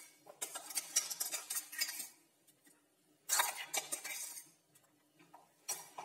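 Small stainless-steel grinder jar clinking and scraping against a steel plate as coarsely ground spice paste is tapped and scraped out of it. There are rapid metallic clinks in two main bouts, one near the start and one a little past the middle, and a short one near the end.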